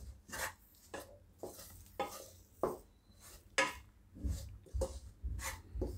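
Slotted metal spatula stirring and scraping dry rice flour around a kadai, in a series of short, irregular strokes.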